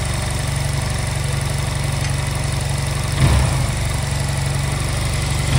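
Honda Silver Wing scooter engine idling steadily while its idle speed and air mixture are being set.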